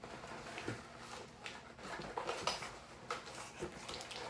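Tools, batteries and packaging being handled and rummaged through, giving scattered light clicks, knocks and rustling.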